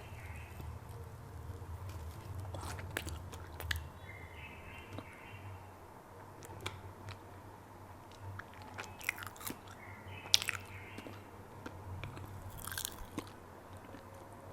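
Close-miked ASMR eating: biting into and chewing bread, with scattered sharp mouth clicks and smacks over a faint steady low hum.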